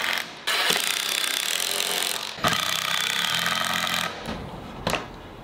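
Cordless impact driver driving screws into plywood: a short run, a brief pause, then one long run that stops about four seconds in.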